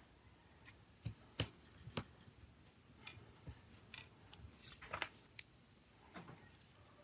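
Scattered small clicks and taps of a disassembled Nokia C2-01 mobile phone's plastic frame and circuit board being handled, set down on a silicone work mat and picked at with steel tweezers, with two brief scraping rustles about three and four seconds in.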